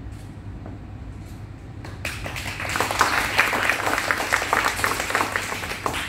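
A group of people applauding, starting about two seconds in; before that only a low steady hum.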